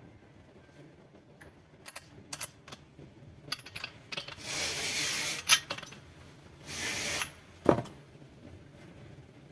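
Workbench handling of metal tools and parts: scattered clicks and clinks, two rasping rushes of about a second each around the middle, and a sharp knock near the end.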